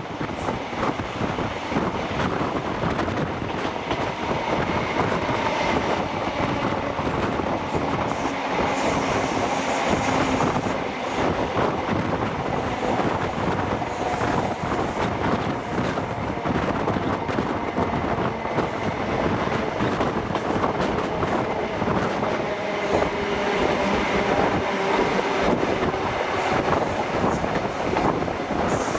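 Passenger train running at low speed over the tracks: wheels clattering over rail joints and points, with drawn-out wheel squeal that slowly changes pitch.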